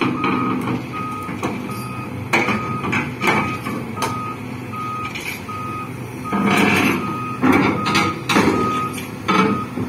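Volvo EC950E crawler excavator's travel alarm beeping a little under twice a second over its running diesel engine as the machine tracks backwards down off a lowboy trailer, with heavy metallic clanks from the steel tracks, loudest in the second half.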